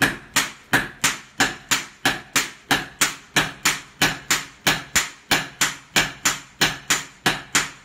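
Two hand hammers taking turns striking a red-hot steel knife blank on a post anvil, a steady rhythm of sharp ringing blows about three a second. This is the hand-forging of a gyuto blade from leaf-spring steel.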